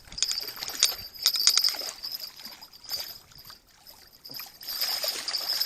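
Irregular knocks, rattles and water splashing in uneven bursts as a hooked carp is brought in and a landing net is handled.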